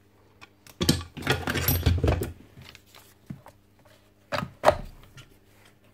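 Freshly repaired 5 kVA site transformer, energized, giving a faint steady mains hum. Over it, a yellow 110 V plastic plug clatters and knocks against the outlet socket as it is handled: a run of knocks about a second in and two sharp knocks near the end.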